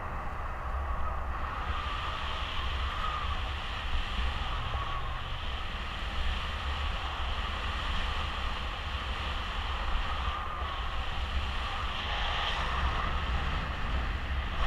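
Steady rush of air over the microphone of a paraglider's camera in flight, a low buffeting rumble under an even hiss.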